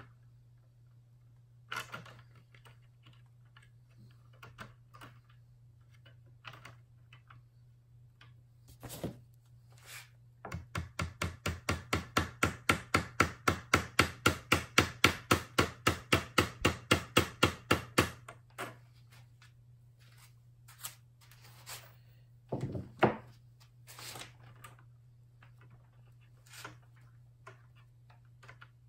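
A small hammer tapping rapidly and evenly on the hidden control arm of a wooden plantation shutter, about five light taps a second for some eight seconds, growing louder as it goes. Scattered clicks and knocks from handling the shutter parts come before and after, with a louder knock or two a little past the middle.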